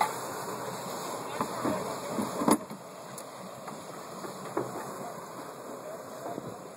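Steady rushing noise of wind and choppy lake water, louder for the first couple of seconds, with a single sharp knock about two and a half seconds in.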